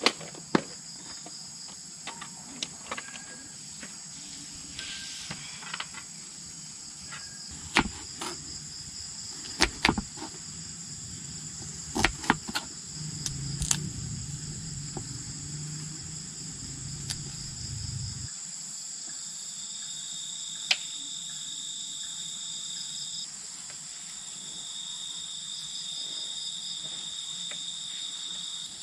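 Crickets and other insects chirring steadily, with a second, steady insect trill setting in about two-thirds of the way through. Scattered sharp taps and knocks of a knife chopping vegetables on a cutting board stand out above them.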